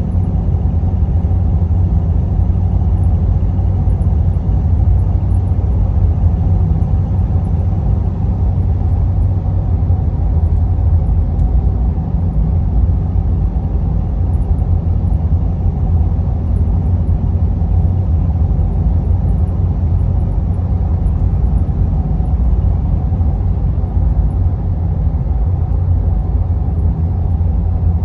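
Cab interior of a Ford F250 with a 6.7 Powerstroke turbodiesel V8 cruising at a steady highway speed. The 5-inch exhaust, with no muffler and no resonator, gives a constant low drone, blended with the hum of all-terrain tires and road noise.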